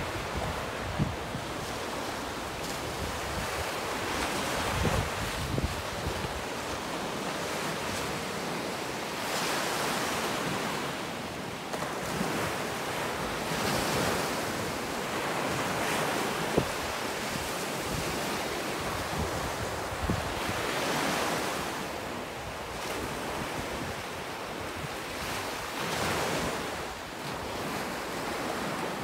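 Ocean surf breaking on a beach: a steady wash that swells and fades every few seconds as waves come in, with a few brief gusts of wind on the microphone.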